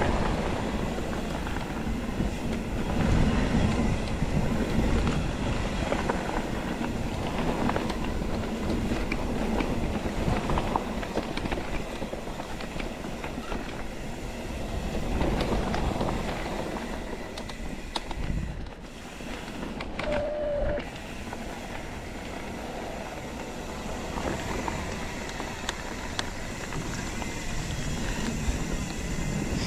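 Mountain bike ridden slowly down rough single track: tyres rolling over dirt and stones, with the bike rattling and clicking throughout, picked up close on a GoPro. A brief squeal about two-thirds of the way through.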